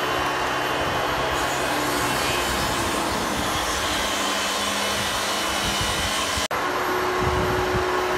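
Steady whir and rush of air from a running motor-driven fan, with a short break about six and a half seconds in, after which a steady hum tone comes through.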